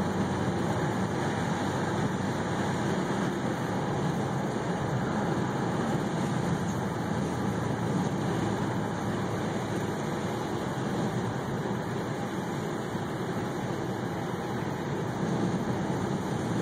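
Steady road noise inside a moving car's cabin: tyres on the road and the engine running at cruising speed.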